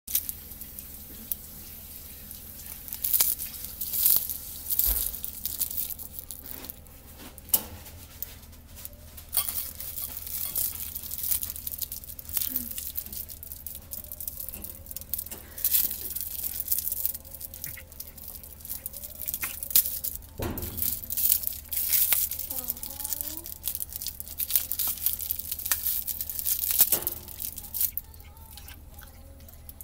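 A shiny metallic foil gift bow crinkling and crackling in irregular sharp bursts as a cat bites and chews at it.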